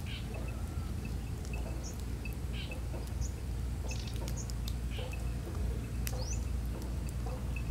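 Birds chirping in short scattered calls, with one rising call about six seconds in, over a steady low rumble.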